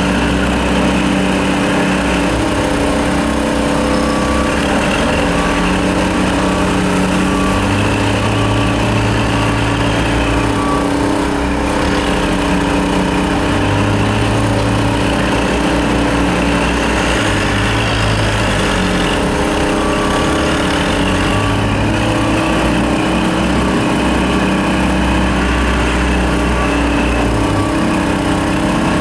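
Engines of roadworks machinery running steadily: a constant engine hum, with a deeper drone that comes and goes every few seconds.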